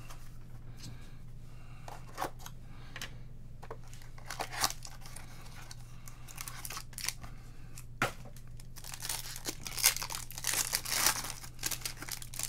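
The wrapper of a baseball card pack being torn open and crinkled: a few short separate rips, then a long dense stretch of crinkling near the end. A steady low hum runs underneath.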